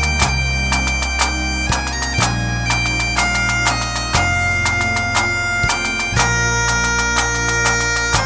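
Instrumental music: a bagpipe melody of held notes over steady low drones, with a regular drum beat.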